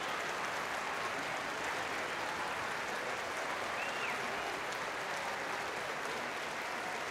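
Large audience applauding steadily, with a brief high whistle about four seconds in.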